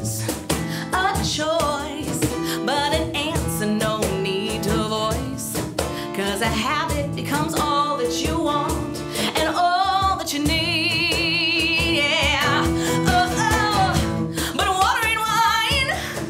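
Live acoustic song: a woman singing over acoustic guitar and hand-played cajon. Near the middle she holds one long note with a wide vibrato.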